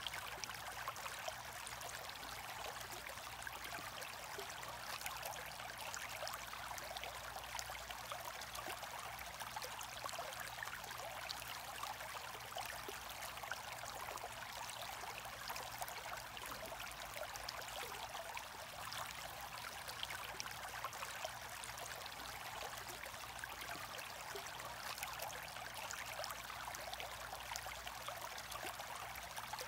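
Aquarium air stone bubbling steadily in a fish tank, a continuous fizzing trickle of water, with a low steady hum underneath.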